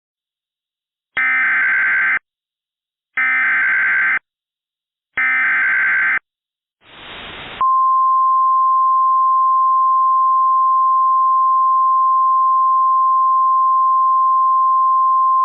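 Emergency Alert System SAME header: three one-second bursts of rapid data warble, then a short burst of hiss, then the NOAA Weather Radio single-pitch alert tone near 1 kHz held steady for about eight seconds. The tone signals a severe thunderstorm warning.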